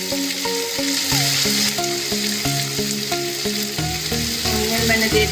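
Chopped onions sizzling steadily in hot oil in an aluminium kadhai, over background instrumental music with a melody and beat.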